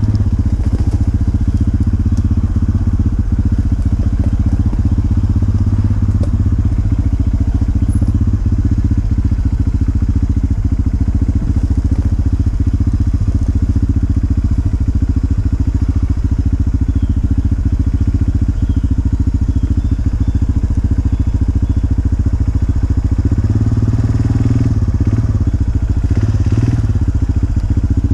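Dirt bike engine running steadily at low revs, with a short rise in revs near the end.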